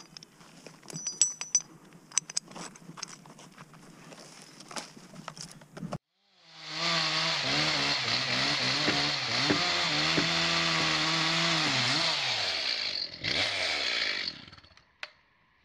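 Gloved hands handling a wire-rope choker cable in brush, with scattered clicks and rustles. Then, about six seconds in, a gas chainsaw revs up and runs steadily at high revs, bucking a large fallen log; near the end its pitch sags and it dies away.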